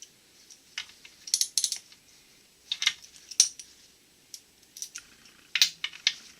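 Ratchet wrench clicking in short, irregular bursts of sharp metallic clicks while the rear bearing retaining bolt of a Borg-Warner T-10 four-speed transmission is loosened.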